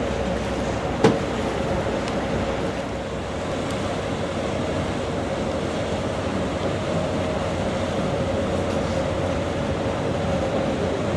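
Steady drone of a river boat's engine over rushing water, with one sharp click about a second in.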